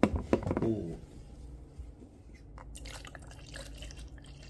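Clear plastic shaker cup set down on a wooden desk with a few clacks, then water poured into it as a faint, steady pour.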